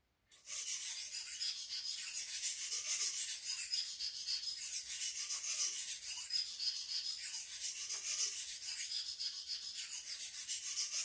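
A 400-grit sharpening stone on a clamp-guided knife sharpening system rubbing up and back along a boning knife's edge at a 25-degree angle in steady strokes, grinding the first side until a burr forms. The sound is a continuous gritty scraping, starting about half a second in.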